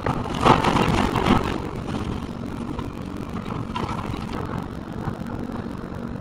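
Kobelco hydraulic excavator running steadily while its bucket tears into a brick building's wall and roof. About half a second in, a loud burst of crashing and cracking debris lasts about a second, with smaller crunches around four seconds in.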